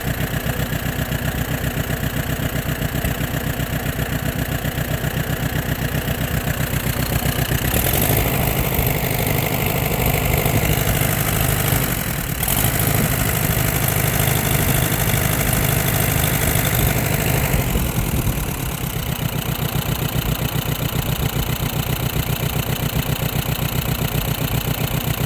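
Allis-Chalmers B tractor's four-cylinder gasoline engine running with an even firing beat. It is throttled up to a faster, louder run from about 8 to 18 seconds in, with a brief dip near 12 seconds, then drops back to idle.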